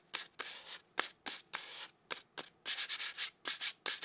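Sandpaper rubbed back and forth on a small wooden block, a series of raspy scraping strokes: a few longer, slower strokes at first, then quicker, shorter and louder ones in the second half.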